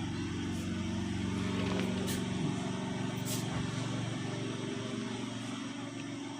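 A steady low engine-like hum with a few faint ticks.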